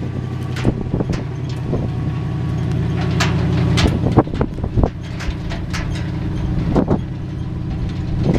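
1967 Chevrolet C50 grain truck's gasoline engine pulling away under load. The engine note climbs for the first few seconds, then drops about halfway through, with scattered knocks and rattles over it.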